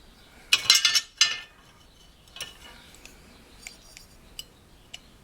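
Small metal parts clinking and rattling as they are handled: a burst of rattling about half a second in, then scattered light clicks.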